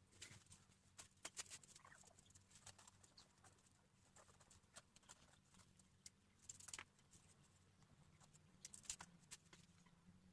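Near silence with faint, scattered small clicks and scratches, like light hand handling of material, a little busier about two-thirds of the way through and again near the end.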